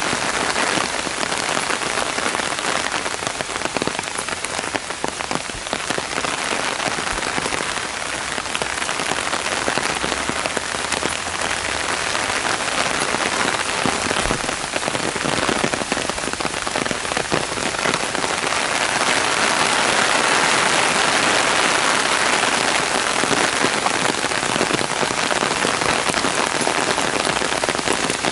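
Heavy rain, a downpour, falling on a paved footpath and the surrounding trees and grass: a dense, steady hiss of drops with scattered louder drips. It grows a little louder about two-thirds of the way through.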